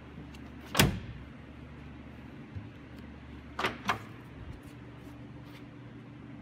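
GMC Sierra AT4 pickup tailgate slammed shut about a second in. A little under three seconds later, two smaller knocks as it is unlatched and lowered again.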